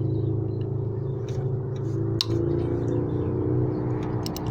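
A steady low engine-like drone hums in the background. Over it come a sharp metallic click about two seconds in and a quick run of ratchet clicks near the end, as a socket wrench works a belt-tensioner bolt loose.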